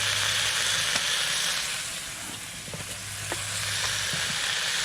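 Steady sizzling from food frying in a pan. It fades for about a second partway through, then picks up again.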